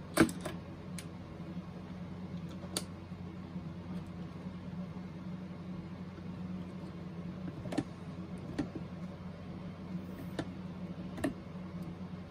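A screwdriver clicking and knocking now and then against the plastic case of a boombox, in scattered sharp clicks with the loudest right at the start, over a steady low hum.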